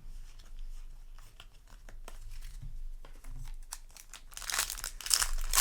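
Faint rustling and small clicks of cards being handled, then, about four seconds in, a foil Yu-Gi-Oh booster pack wrapper crinkling and tearing open, louder.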